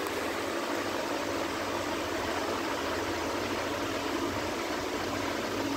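A steady hiss with a faint low hum underneath, with no distinct calls or knocks.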